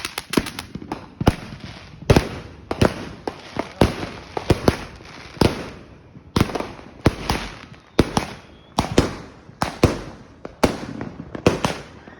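A 260-shot Eclipse 2 firework cake firing shot after shot, a sharp bang roughly every three-quarters of a second, each trailing off in crackle.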